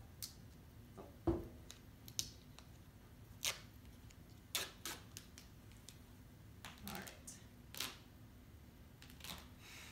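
A roll of duct tape being turned in the hands and picked at for its loose end, giving a scatter of sharp, irregular clicks and ticks, with a dull knock a little over a second in.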